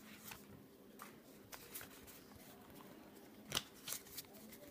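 Faint handling of a stack of Pokémon trading cards as they are shifted and flipped in the hands: soft slides with a few light clicks, the sharpest about three and a half seconds in.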